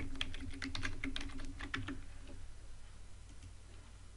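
Typing on a computer keyboard: a quick run of keystrokes that stops about halfway through, leaving a faint low hum.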